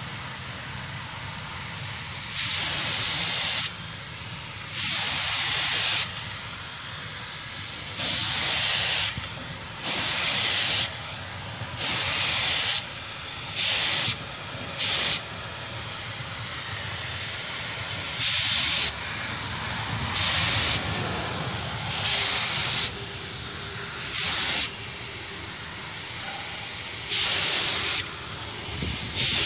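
F75 HVLP spray gun spraying epoxy primer in short passes: a hiss that swells loudly about a dozen times, each burst lasting a fraction of a second to over a second, over a steady lower hiss of air.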